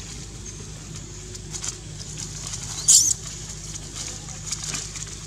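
A baby macaque gives one short, high-pitched squeal about three seconds in, over light rustling and ticking in dry leaves and a steady low hum.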